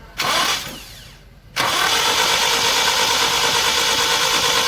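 Toyota Kijang Kapsul's four-cylinder engine being cranked on the starter with its spark plugs out, so it does not fire: a short crank just after the start, then about a second later a longer steady crank of about three and a half seconds. The cranking blows the cleaning foam out of the combustion chambers.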